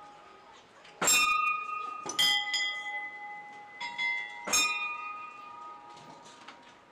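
Metal bells struck one after another, each strike ringing on with several clear tones that slowly fade and overlap the next. There are strikes about a second in, just over two seconds in and about four and a half seconds in, with a lighter one shortly before the last.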